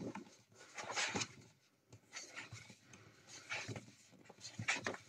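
Paper pages of a colouring book being turned one after another, a soft papery swish about once a second.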